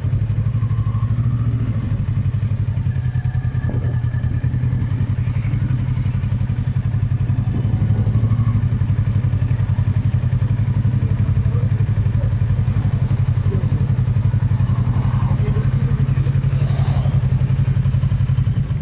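Kawasaki Versys 650's parallel-twin engine running steadily at low revs, its pitch holding level throughout.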